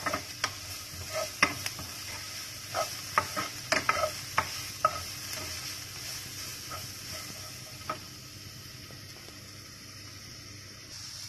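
Onion, garlic and grated carrot sizzling steadily in a little oil in a non-stick frying pan, with a wooden spatula scraping and tapping against the pan as they are stirred. The stirring thins out and stops after about eight seconds, leaving only the steady sizzle.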